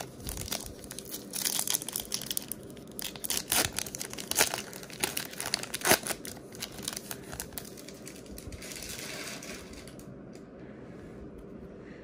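Wrapper of a Topps Stadium Club baseball card pack crinkling and tearing as it is opened, a run of sharp crackles loudest about four to six seconds in. It eases to a softer rustle after about eight seconds.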